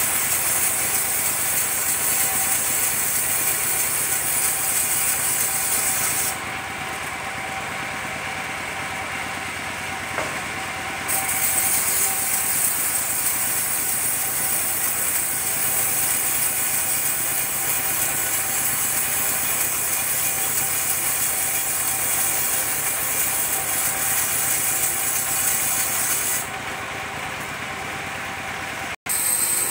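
Engine-driven circular saw ripping a coconut-wood plank: the engine runs steadily under a high, hissing cutting noise from the blade. The cutting hiss falls away for a few seconds about six seconds in and again near the end, while the engine keeps running, and the sound breaks off for an instant just before the end.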